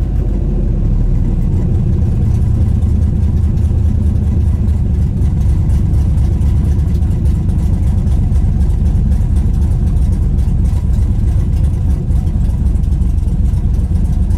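A 2000 Pontiac Trans Am's 5.7-litre LS1 V8, fitted with an aftermarket cam, comes down off a rev into a steady idle at about 1,000 rpm, heard from the driver's seat.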